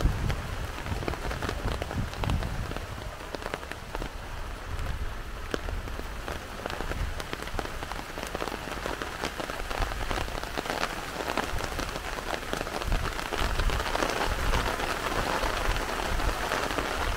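Heavy rain falling steadily, with many single drops heard as fine, sharp ticks against the even hiss.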